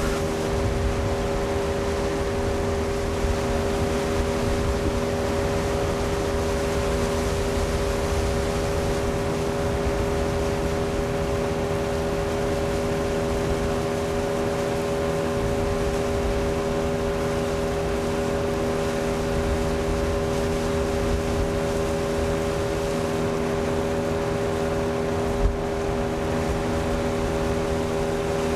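Boat outboard motor running at a steady cruising pitch, pushing an inflatable boat along the river, with wind and water rush underneath.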